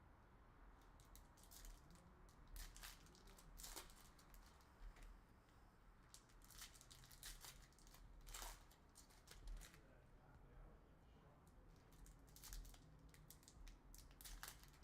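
Faint, scattered rustling and clicking of trading cards and card-pack wrappers being handled and shuffled, in short irregular strokes.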